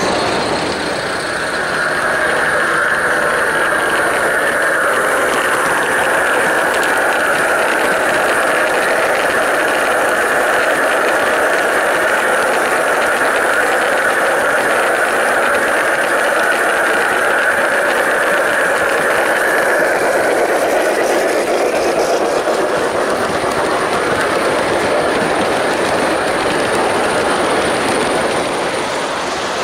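A G gauge model freight train rolling along the layout track, its wheels clattering steadily on the rails. The rolling noise eases off after about twenty seconds.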